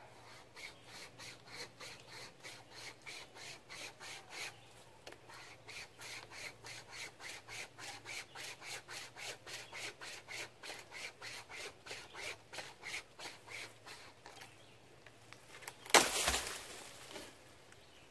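Survival wire saw pulled back and forth through a tree limb, rasping on the wood at about four strokes a second, then stopping about fourteen seconds in. About two seconds later comes a sudden loud crack and crash that trails off briefly, as the limb breaks free.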